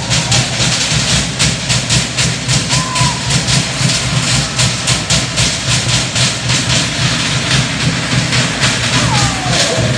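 Fast, even drumming on Samoan log drums, the accompaniment for a fire knife dance, with a deep drum pulsing under it. A couple of brief sliding cries rise over the beat.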